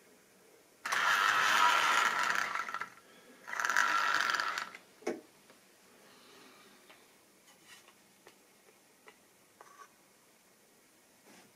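Model railway locomotive's small electric motor whining with the rattle of wheels on the track, in two short runs: one of about two seconds, then a shorter one of about a second. Faint clicks follow.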